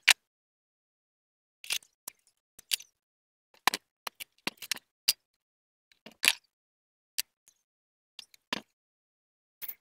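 Irregular clicks and metal knocks from a car alternator's housing and parts being handled and fitted together by hand, about a dozen short sharp sounds with gaps between.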